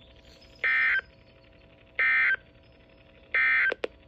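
Emergency Alert System end-of-message data bursts on NOAA Weather Radio: three short, identical bursts of buzzing digital tone about a second apart, marking the end of the warning message. Two quick clicks follow near the end.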